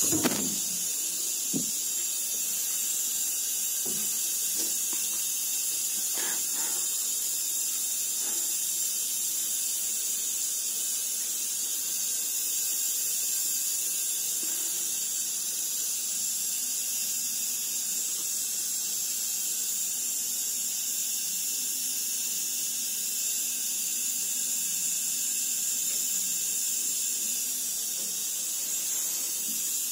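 A steady high hiss throughout, with a few soft knocks and rustles in the first several seconds.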